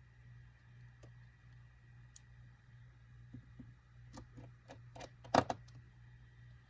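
Light scattered clicks and taps of a small screwdriver and tiny screws on a phone's internal parts as screws are driven back in. They come in a cluster, with one sharper click about five seconds in.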